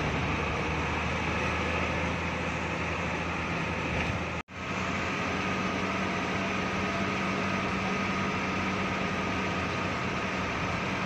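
Hino AK3HR bus engine running under way, heard from inside the cab with steady road and drivetrain noise. About halfway through, the sound cuts out for a moment, then a steady engine hum follows as the bus climbs a hill.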